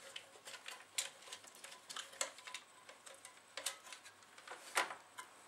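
Irregular clicks and light knocks of a plastic CD drive mechanism being handled and seated into a twin CD player's metal chassis, the loudest knock near the end.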